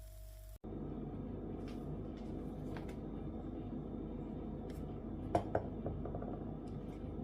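Kitchen handling sounds: a few light clicks and knocks, with a louder double knock about five and a half seconds in, over a steady low hum.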